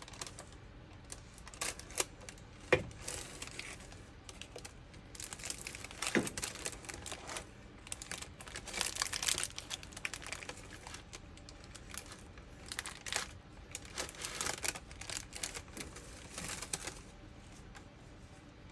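Wax paper crinkling, with scattered clicks and an occasional sharper knock of a spoon, as sticky fruit cake mixture is pressed into a paper-lined box. The rustling comes in irregular spells, busiest about midway and again near the end.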